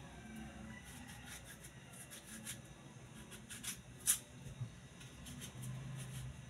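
A kitchen knife shaving the rind off a hand-held melon: faint scraping, with a few sharp clicks of the blade, the loudest about four seconds in.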